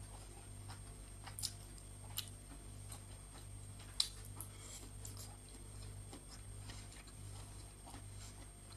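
Quiet eating sounds: a few short, sharp clicks and crunches as steamed broccoli is bitten and chewed, the loudest about four seconds in.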